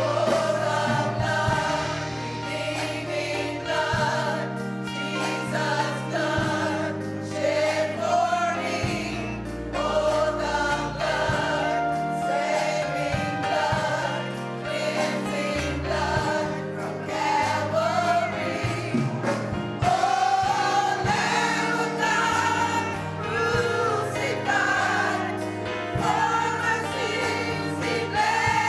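Choir singing a gospel song with instrumental accompaniment.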